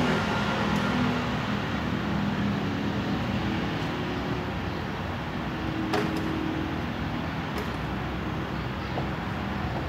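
Steady outdoor traffic noise, vehicle engines running with a constant low rumble, and a sharp click about six seconds in.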